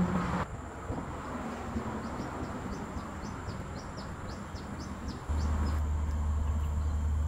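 A bird calling, a run of short high falling notes about three a second, over a steady background noise. A loud, steady low hum comes in after about five seconds.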